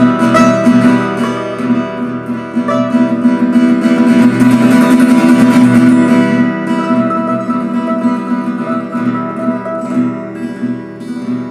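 Two acoustic guitars played together, strummed chords and picked notes ringing on. The playing is fuller in the first half and quieter after about six seconds.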